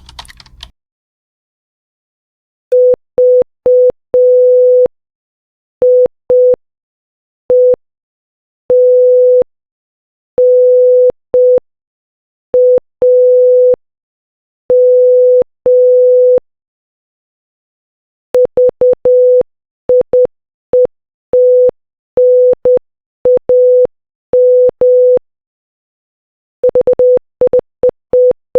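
A single steady electronic beep tone keyed on and off in Morse code dots and dashes, spelling 'Vietnam' (...- .. . - -. .- --). It plays once slowly, then again faster, and starts a third, faster still, near the end. A brief burst of noise comes at the very start.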